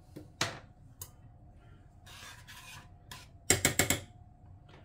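Kitchen utensils on a stainless steel saucepan of soup: scattered knocks, a short scrape about two seconds in, and a quick run of clicking knocks about three and a half seconds in as a metal spoon works against the pan.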